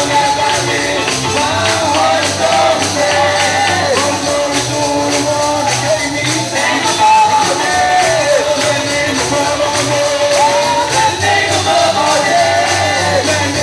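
Church worship music: singing with a tambourine keeping a steady beat over a bass line.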